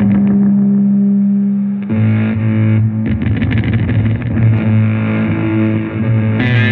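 Improvised noise-rock music of distorted electric guitars holding a low, sustained drone. The held tones shift about two seconds in, and the sound turns harsher and brighter near the end.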